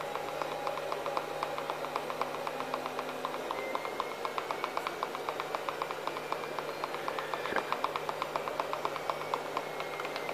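Mixing stick stirring liquid polyurethane in a plastic pot, giving a rapid, even run of small clicks as it scrapes around the pot, over a steady low hum.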